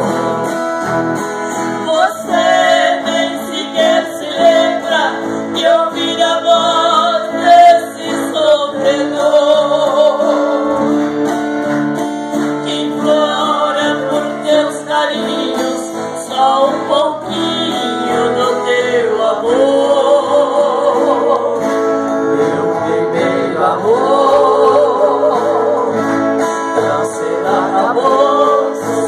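Two acoustic guitars strummed under a woman singing a sertanejo ballad into a microphone.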